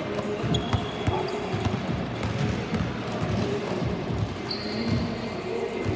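Basketball thudding on a sports-hall court floor, with players' footsteps and brief sneaker squeaks, under the echoing hiss of a large hall.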